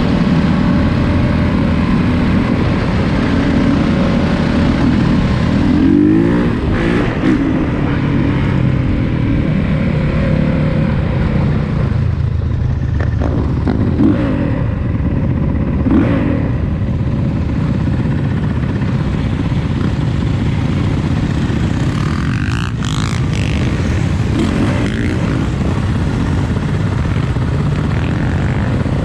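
Honda CRF450 dirt bike's single-cylinder four-stroke engine running under way. The revs rise and fall several times, at about 6, 13, 16 and 22 seconds in.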